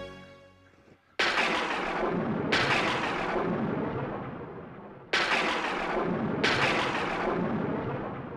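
Four heavy cinematic impact booms from an added dramatic sound effect, coming in two pairs, each hitting suddenly and ringing away slowly over a couple of seconds. Sad background music fades out just before the first hit.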